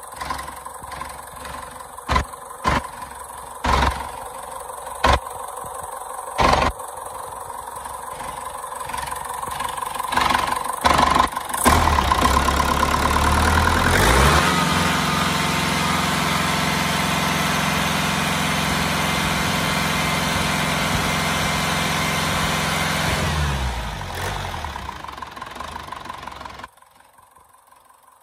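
Deutz F4L912 air-cooled four-cylinder diesel engine being turned over on its starter with a compression gauge fitted to a cylinder: a steady drone of even pitch for about ten seconds that winds down and stops. Before the cranking there are a few sharp knocks over a steady high tone.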